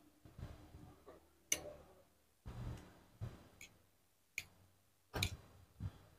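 A metal spoon clinks sharply against a ceramic soup bowl three or four times while someone eats. Soft, close-miked chewing and mouth sounds fill the gaps.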